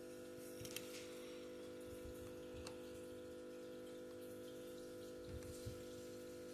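Faint, scattered clicks of a small screwdriver working a tiny screw into a notebook's case, over a steady background hum.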